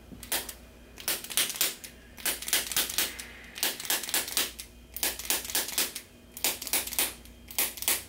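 Handheld chiropractic adjusting instrument firing against the base of the neck. It makes rapid clicking taps in short clattering bursts of about a second, with brief pauses between bursts.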